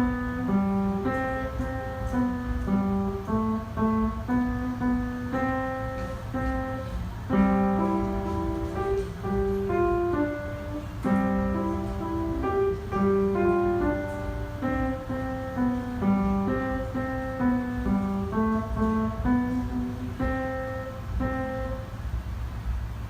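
Instrumental music of plucked guitar and keyboard notes, without singing, over a steady low rumble.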